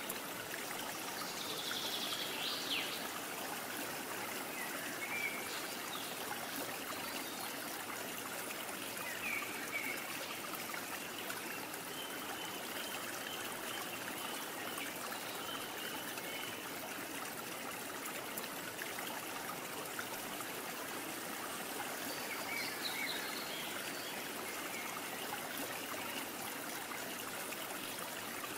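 A steady rushing hiss like a flowing stream, with a few faint short high chirps about two seconds in and again around twenty-three seconds.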